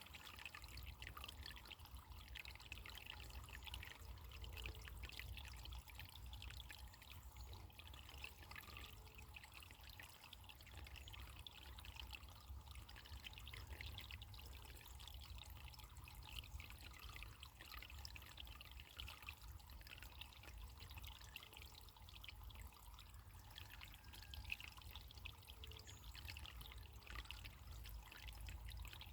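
Running water trickling and splashing steadily and faintly, with a low rumble underneath.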